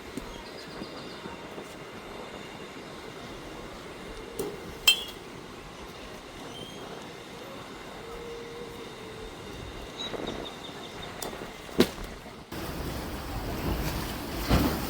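Batting-cage pitches: two sharp cracks of a baseball striking, about five and twelve seconds in, over a steady mechanical rumble. Near the end this gives way to wind buffeting the microphone.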